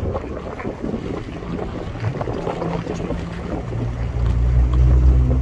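Wind buffeting the microphone, rumbling and crackling, with a vehicle engine's steady hum coming in and growing loudest about four seconds in.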